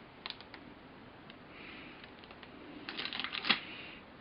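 Plastic model kit parts handled on a table: scattered light plastic clicks, then a quick cluster of clicks and clatter about three seconds in.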